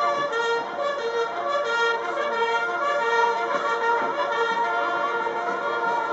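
Massed military band and bugles playing together: sustained brass and bugle notes in continuous music.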